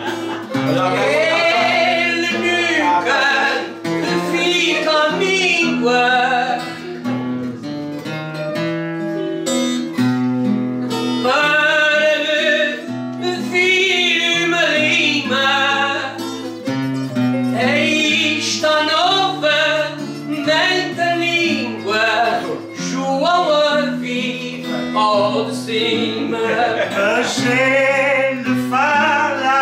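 A voice singing a song over plucked string instruments that hold steady sustained notes beneath it, with no pause.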